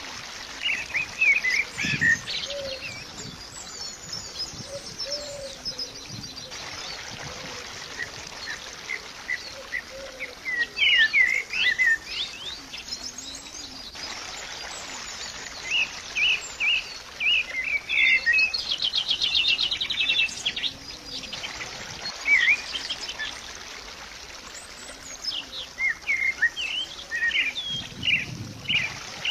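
Birds chirping and singing in short, repeated phrases, with a fast trill a little past the middle.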